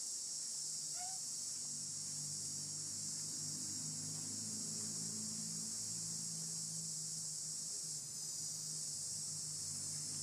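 Steady, unbroken high-pitched buzz of an insect chorus, with a faint low drone underneath from about a second and a half in.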